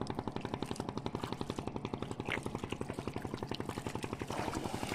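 A motor engine running steadily with a fast, even chugging beat.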